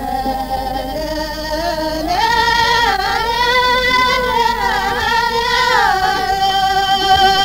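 Voices singing an Amazigh ahwach chant in long held notes that glide up and down between pitches.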